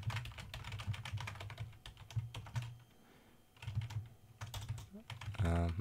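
Typing on a computer keyboard in quick bursts of key clicks, with a pause a little past halfway. A short hum of voice near the end.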